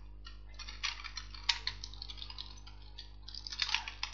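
Computer keyboard keys clicking in short irregular runs as code is typed, with a denser flurry of keystrokes near the end, over a steady low hum.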